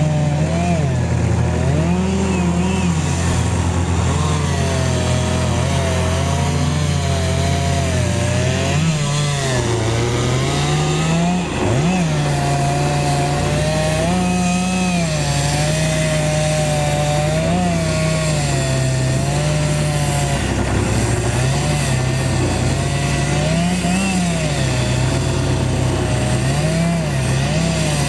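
Chainsaw running at high revs while cutting wood. Its engine pitch rises and falls over and over, with a brief drop about eleven seconds in.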